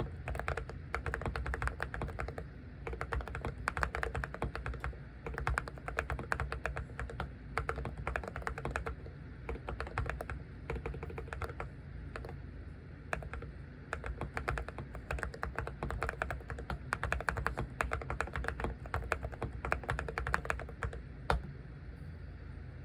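Continuous fast typing on a Seraki Zen75 low-profile keyboard with ceramic keycaps: a dense run of short keystroke clicks that stops shortly before the end with one last keystroke.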